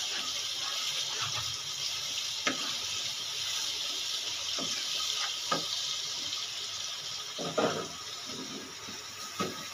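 Spice masala frying in a non-stick kadai, with a steady sizzling hiss, while a wooden spatula stirs it, knocking and scraping against the pan a few times.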